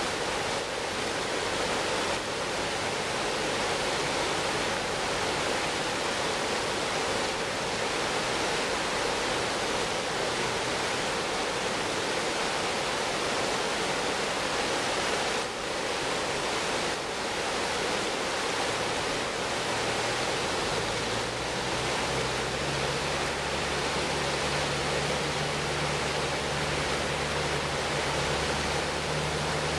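River water rushing steadily over a shallow rocky ledge in white-water rapids. A low engine hum comes in about two-thirds of the way through.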